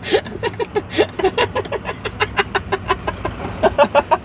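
Two men laughing hard together in rapid, loud bursts of ha-ha-ha.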